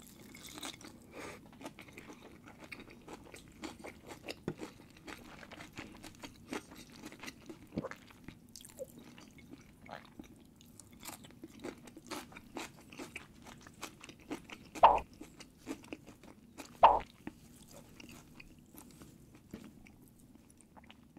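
Close-miked eating: a person chewing a mouthful of lime-steamed Asian sea bass, a steady run of small wet mouth clicks and smacks, with two louder mouth sounds about 15 and 17 seconds in.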